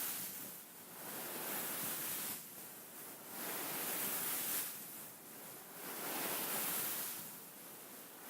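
Beaded pillow being handled, its beads rustling in slow swells of hiss that come and go about every two seconds.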